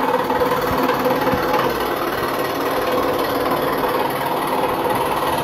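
Electric scroll saw running steadily, its reciprocating blade cutting through a thin wooden board.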